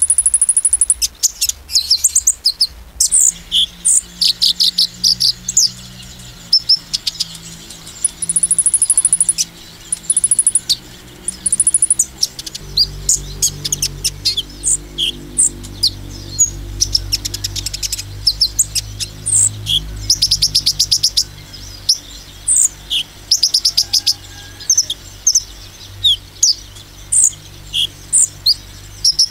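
A male sunbird (kolibri ninja) singing hard: a fast, high-pitched run of sharp chirps and short trills, repeated almost without pause.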